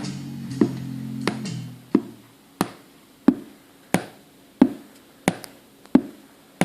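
Anker A3143 Bluetooth speaker playing guitar music with sharp pops at an even beat, about three every two seconds. The music fades out about two seconds in while the pops carry on alone: a playback fault that makes the speaker unusable.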